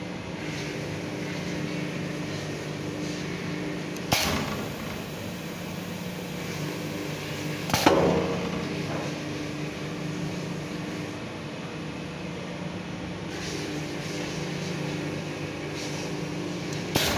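Leather insole stamping press working, with a steady machine hum and the press head coming down sharply three times: about four seconds in, most loudly near eight seconds, and again at the very end.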